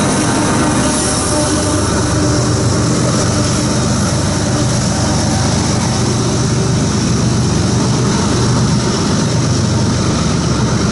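Rear distributed-power diesel locomotive of a loaded coal train running as it moves away down the line. A steady low engine rumble with a hiss on top.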